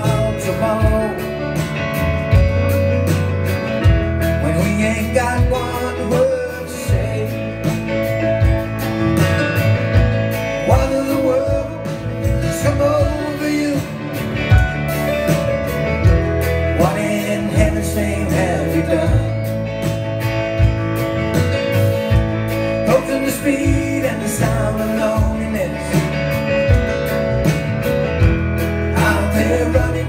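Live band playing an instrumental break of a country-rock song: guitars, keyboard, bass and drums keeping a steady beat, with bending melodic lead lines over it.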